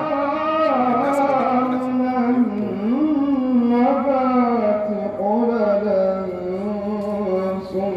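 A male voice chanting a Maulid qasida in the Arabic devotional style, holding long notes and winding through melismatic runs without a break. No drum is heard.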